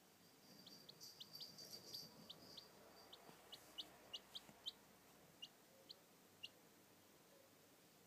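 Pekin bantam chick peeping: a string of short, high, falling peeps, quiet overall, coming close together for the first two seconds or so, then spacing out and stopping about six and a half seconds in.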